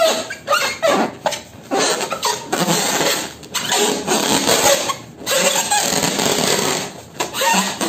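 Hands squeezing and rubbing an inflated latex balloon: the rubber squeaks and rasps in rapid, uneven bursts.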